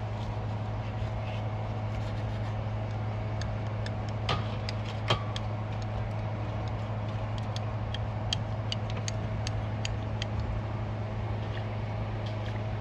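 Light metallic clicks and taps of hand tools on car parts over a steady low hum, with two louder knocks about four and five seconds in.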